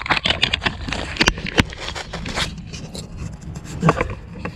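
Scraping with irregular sharp clicks and knocks, the loudest a little over a second and a half in and again near four seconds in.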